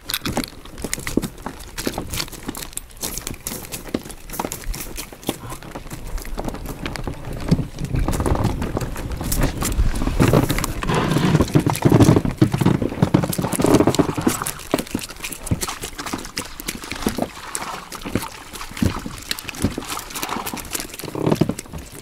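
Wire-mesh fish keepnet full of perch being hoisted and weighed on a hanging scale: rapid, irregular rattling and knocking of the wire and its catch, with wind rumbling on the microphone.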